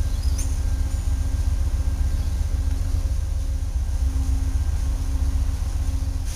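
Domestic long-haired cat purring close by, a loud, steady low purr that swells and eases with each breath, about once a second.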